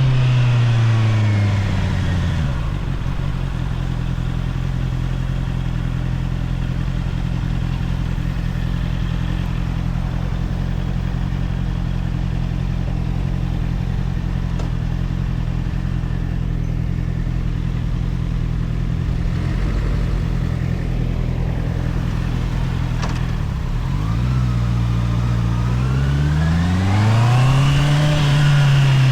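Honda CBR650R's inline-four engine on its stock exhaust: revs fall over the first couple of seconds and it settles to a steady idle for about twenty seconds. Near the end the revs rise again as it pulls away, then level off.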